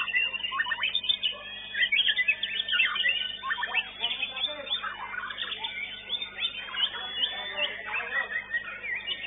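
White-rumped shamas (murai batu) singing in competition: a dense, continuous stream of rapid, varied whistles, trills and chirps, several songs overlapping.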